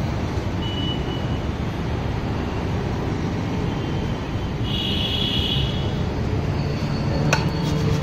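Steady road traffic rumble, with a short high-pitched vehicle horn beep about five seconds in and a single sharp clack near the end.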